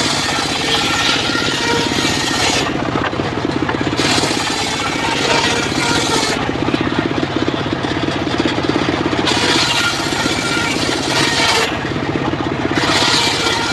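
Engine-driven circular sawmill running steadily. Its blade rips through wood in repeated passes, each a loud hiss lasting a couple of seconds, about four times, with the engine drone in between.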